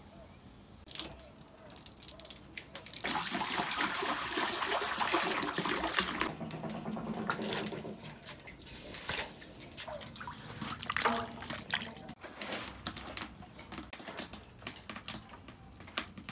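Water poured from a large bottle into a wok of blanched lamb bones for about three seconds, followed by scattered knocks and clatter.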